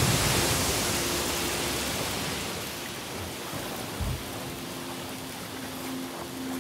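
Ocean surf crashing against a lava shore where lava meets the sea: a dense rushing noise, loudest at the start and fading, with a low thump about four seconds in.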